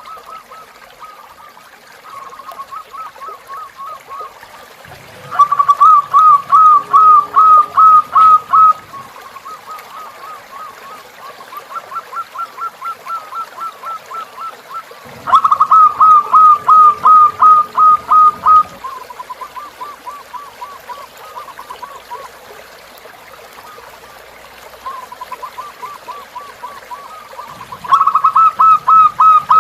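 Zebra dove (perkutut) calling in repeated series of short, quick notes, about three or four a second, each series lasting a few seconds. The loudest series come about five seconds in, near the middle and near the end, with softer ones between, over a steady trickle of flowing river water.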